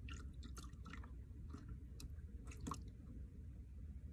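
Small waves lapping among shoreline rocks: a faint low rumble with scattered short wet clicks and ticks.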